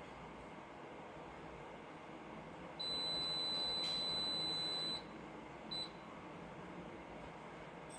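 Frigidaire washing machine's electronic beeper: one long, steady high-pitched beep of about two seconds, then a short beep. This unprompted beeping is the fault the owner is trying to fix.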